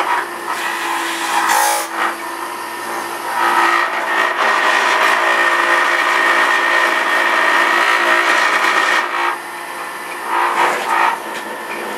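Electric centrifugal juicer motor running with a steady whine, loud enough to draw the remark 'so much noise'. It runs louder and fuller for several seconds in the middle while spinach is pressed down the feed chute into the spinning blade.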